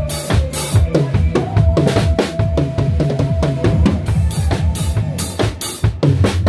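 Acoustic drum kit played with sticks: a busy run of bass drum, snare and Zildjian cymbal hits, played over a trot backing track.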